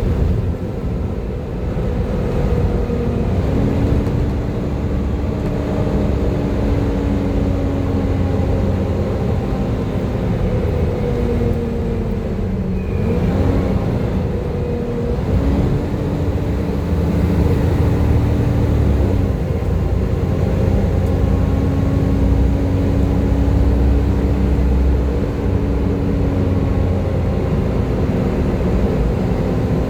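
Volvo B7TL bus's six-cylinder diesel engine running hard, with a low rumble under a steady vacuum-cleaner-like whine. The whine steps up and down in pitch several times, about four seconds in, near the middle and again toward the end, as the bus works through its speed and gears.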